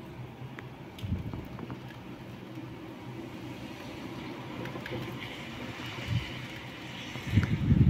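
Rain falling outside over a steady low hum, with a low bump about a second in and louder low bumps near the end.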